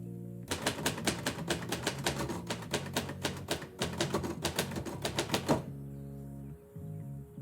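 Typewriter typing: a rapid run of keystrokes lasting about five seconds, then stopping. Background music plays underneath.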